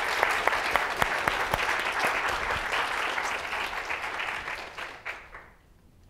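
Audience applauding, a dense patter of many hands clapping that dies away about five seconds in.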